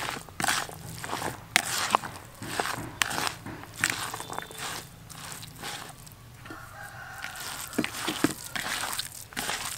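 Hands mixing and squeezing a minced meat and chopped onion mixture in a plastic bowl, giving irregular wet squishing and crunching. A rooster crows once in the background, about six and a half seconds in.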